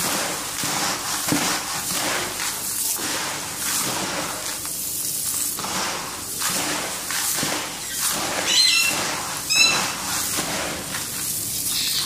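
Dry sunflower seeds and small mixed seeds being stirred and turned by hand in a plastic tub: a dense, continuous rattling rustle. About two-thirds of the way in, two short high bird chirps sound about a second apart.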